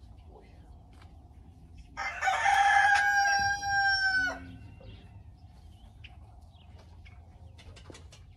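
Rooster crowing once, about two seconds in: a loud call of roughly two seconds on a held note that drops away at the end.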